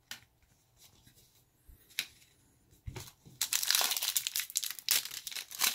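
A foil trading-card pack (2022-23 Panini Mosaic basketball) being torn open and crinkled in the hands. After a few light clicks, the crackling starts about halfway through and gets busy and dense.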